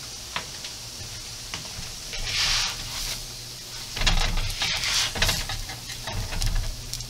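Layered flatbreads sizzling on a hot griddle: a steady light sizzle with small clicks, and two louder stretches of sizzling and handling about two and four seconds in as each bread is turned over by hand.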